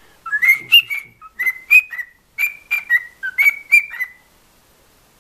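Cockatiel whistling a run of short, chirpy notes at about one pitch, in quick groups of two or three, stopping about four seconds in.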